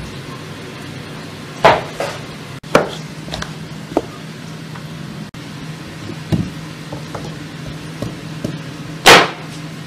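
Kitchen knife cutting potato, onion and carrot on a wooden cutting board: irregular knocks of the blade against the board, the loudest near the end. A steady low hum runs underneath.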